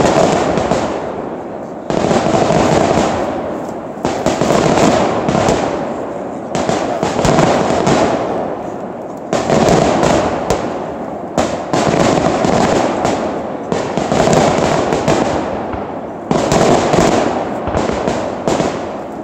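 Aerial firework shells bursting one after another, a sharp boom about every two seconds, each trailing off in a long rolling echo.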